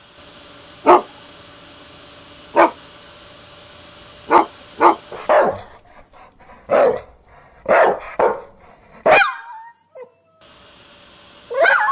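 A dog barking in single, separate barks, about ten of them at irregular intervals, one trailing off into a short falling whine.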